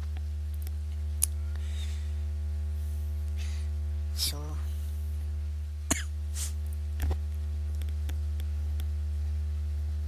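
Steady low mains hum with a buzz of evenly spaced overtones, and three sharp single clicks of a computer mouse: about a second in, near six seconds and about seven seconds in.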